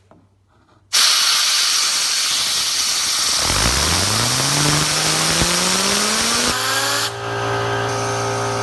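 Compressed air from a compressor blow gun hissing loudly onto a fidget spinner clamped in a vise, starting about a second in. The spinner's whine rises steadily in pitch as it spins up, then settles into a steady drone near the end.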